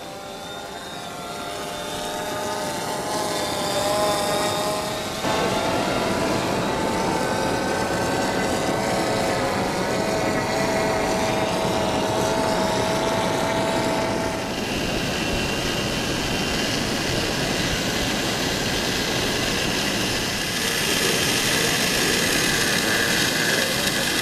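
Fishing drone's propellers whining in flight as it carries the line out, the pitch shifting as it goes; the sound changes abruptly a few times.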